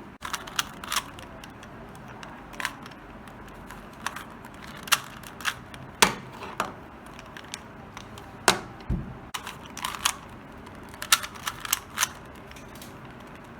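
Plastic Rubik's cube being twisted by hand: irregular sharp clicks of the layers turning, some in quick clusters. There is one duller, deeper knock partway through.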